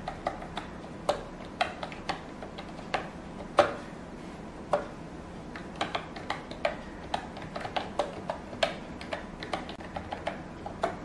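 Typing on an iGear KeyBee wireless keyboard with round typewriter-style keycaps: irregular key clicks, a few a second, with a couple of louder strikes around four to five seconds in.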